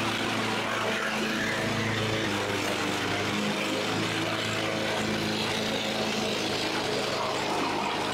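Walk-behind lawn mower running steadily while cutting grass, a constant motor hum over the rush of the blade.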